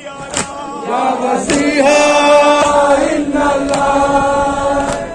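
A crowd of men chanting in unison in a Shia mourning chant, a long held note coming in about a second and a half in, over sharp matam strikes of hands on chests about once a second.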